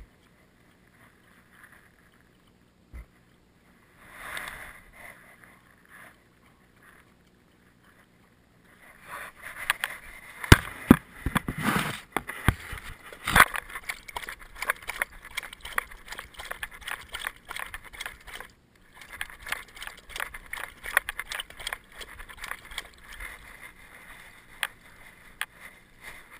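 Dog lapping water from a bowl right at the collar-mounted camera: a fast, irregular run of wet laps and splashes starting about a third of the way in, with a short break a little past the middle before it carries on.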